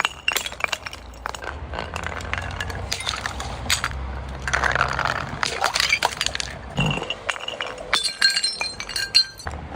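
Glass bottles being crushed: irregular crunching and cracking, with broken shards clinking against each other. The crunching is densest about halfway through.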